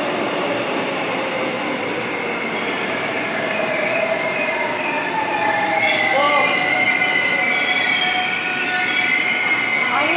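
Seoul Subway Line 7 train slowing into a station platform, running with a steady rumble and a falling whine. From about six seconds in, a high squealing sets in as it brakes to a stop.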